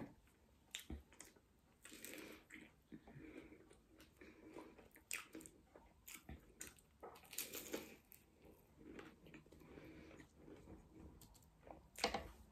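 A person chewing and biting into a fried veg samosa close to the microphone: irregular soft crunches of the pastry and wet mouth sounds, with a louder crunch about halfway through and again near the end.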